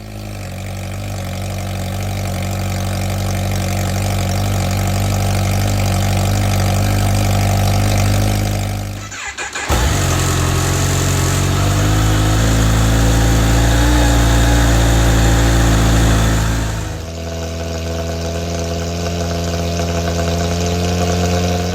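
Kawasaki Ninja H2 SX SE's supercharged inline-four running steadily at idle. About nine seconds in the sound briefly drops out, then comes back louder and with more high-pitched noise. It settles to a lower, steady level again around seventeen seconds.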